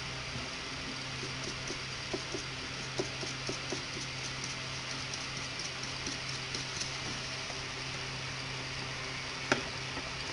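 A small brush scrubbing a circuit board, making faint scattered scratchy ticks, with one sharper click near the end, over a steady low hum.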